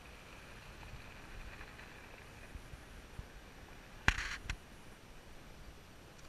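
Faint low rumble of a vehicle rolling slowly along a gravel road. About four seconds in there is a sudden sharp rattling knock lasting about half a second, with a second click just after it.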